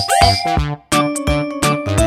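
Electronic background music with a steady beat of drum hits and held synth notes, two quick upward swoops, and a brief drop-out just under a second in.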